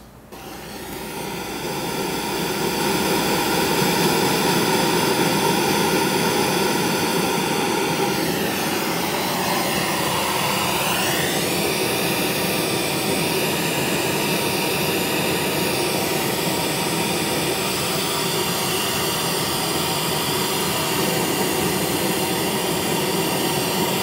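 Pink noise test track played through a Harley-Davidson touring motorcycle's speakers from its Soundstream HDHU14+ radio: a loud, steady hiss evenly spread from low to high, fading up over the first couple of seconds. It is the test signal picked up by a measurement microphone to read the audio system's frequency response on a real-time analyzer for setting the radio's EQ.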